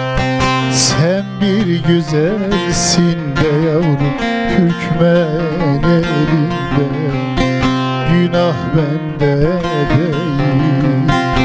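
A man sings a Turkish folk song (türkü) with wavering, ornamented melismas over a strummed bağlama (long-necked saz), whose strings ring on a steady low drone. The voice comes in about a second in, after a few strums.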